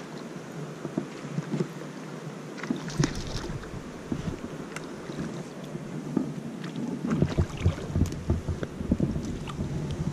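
A hooked bass splashing and thrashing at the water's surface close to the bank as it is reeled in and grabbed, in irregular bursts that grow busier in the last few seconds, with wind buffeting the microphone.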